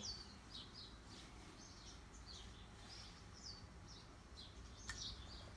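Faint, quick high chirps of small birds in the background, repeating on and off, with a single sharp click about five seconds in.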